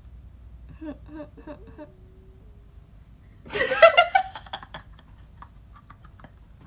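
A few soft voice sounds, then two women burst into loud laughter about three and a half seconds in, fading into smaller giggles.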